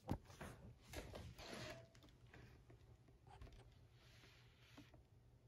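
A single sharp knock as a steam iron is set down on fabric, followed by faint rustling of fabric and paper in the first two seconds, then near silence as the iron presses.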